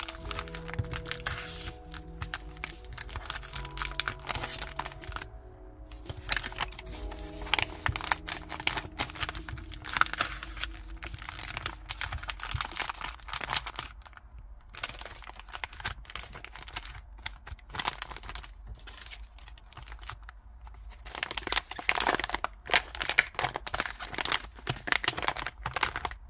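Clear plastic packaging bags crackling and crinkling as they are handled and pressed flat, with soft background music in roughly the first half.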